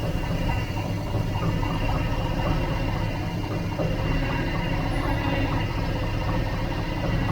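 A vehicle engine running steadily, with a light, regular clatter over its hum.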